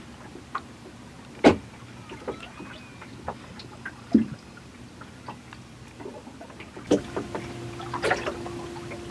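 Quiet calm-sea ambience aboard a small fishing boat, broken by a few sharp knocks and clicks of gear and handling, the loudest about one and a half seconds in.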